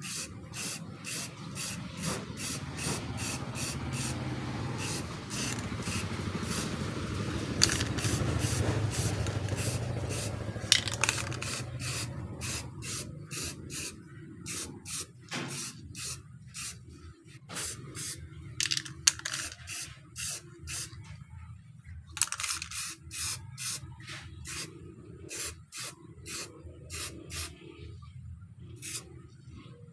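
Aerosol spray-paint can spraying a black top coat onto a bicycle crank and chainring in many short hissing bursts, about two a second, with a steadier hiss under them in the first half.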